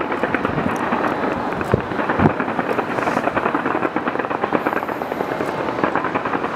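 Fireworks fired from the Taipei 101 skyscraper: a dense, unbroken crackle of rapid pops, with a couple of louder bangs about two seconds in.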